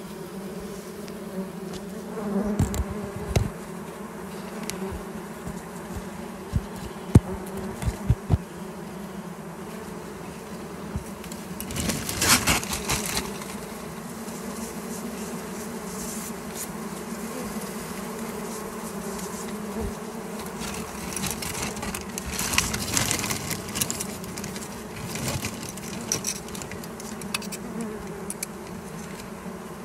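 Wild honey bee colony buzzing at its exposed comb, a steady dense hum. A few sharp taps come a few seconds in, and plastic bag crinkling comes twice around the middle and latter part.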